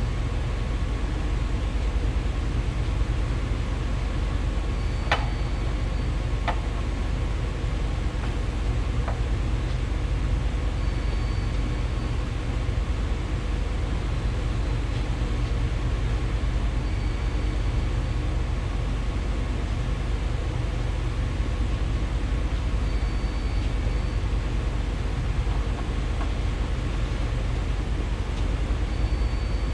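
Steady low rumbling noise with a constant hiss. A short, faint high beep comes about every six seconds, and a few sharp clicks sound a few seconds in.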